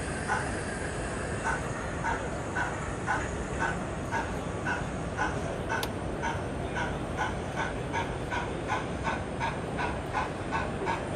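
Sound decoder in a 00 gauge model of a BR 4F 0-6-0 steam locomotive playing exhaust chuffs from its small onboard speaker, a steady beat of about two chuffs a second as the loco runs slowly. Steady background noise runs underneath.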